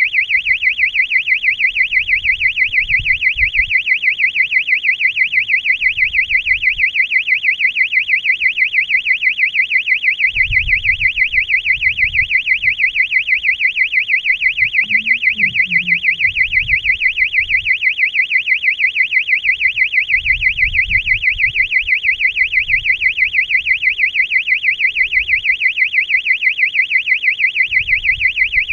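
Electronic alarm buzzer on a high-altitude balloon payload sounding continuously, a loud high warbling tone that pulses rapidly and evenly. Faint low rumbles come and go beneath it.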